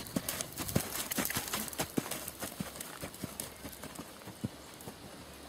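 Horse's hoofbeats on a sand arena, a run of irregular thuds that are loudest in the first couple of seconds as the horse passes close, then grow fainter as it moves away.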